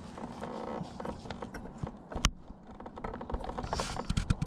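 Small clicks and taps of hands working a headlight bulb's retaining clamp and housing, with one sharp click about two seconds in and a quick run of clicks near the end.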